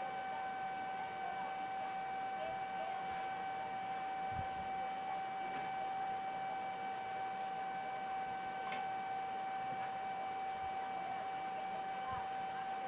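A machine running steadily: a constant high whine over an even hiss, typical of an electric motor under steady running.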